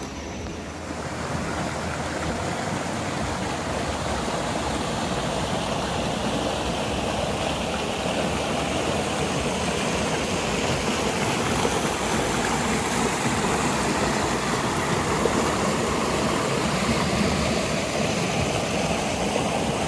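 Rocky forest stream rushing over boulders and small cascades: a steady rush of water that grows louder about a second in.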